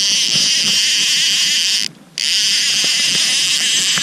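A steady, high-pitched chorus of night-calling animals that drops out for a moment about two seconds in.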